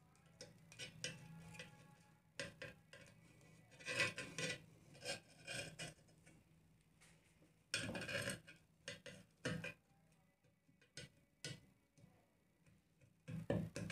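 Hands working on a woofer's metal frame as its spider is pressed and glued into place: scattered light taps and clicks, with short bursts of rubbing and scraping about four and eight seconds in and a few knocks near the end.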